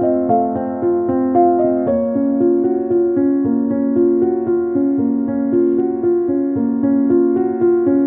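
Background music: a keyboard piece, piano-like, playing an even run of notes over held chords, changing chord about two seconds in.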